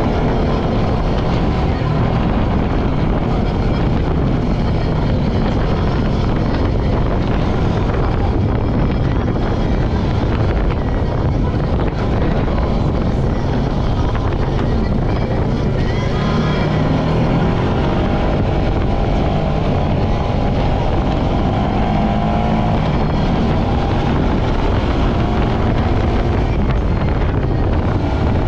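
ATV engine running steadily while riding over a sandy dirt trail, under a dense low rumble of riding noise; the engine pitch wavers a little about midway.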